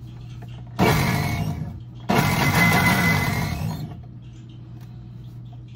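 Countertop blender run in two short bursts to test that it works, each starting suddenly, the second winding down gradually.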